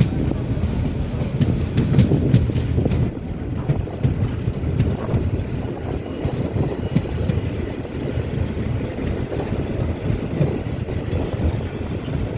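Nasirabad Express passenger train running on the track: a loud, steady low rumble of wheels and carriages, with sharp clicks in the first three seconds and wind buffeting the microphone.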